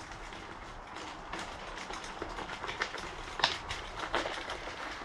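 Bicycle rolling along a trail, its tyres crackling over grit with irregular clicks and rattles, getting busier and louder from about a second and a half in.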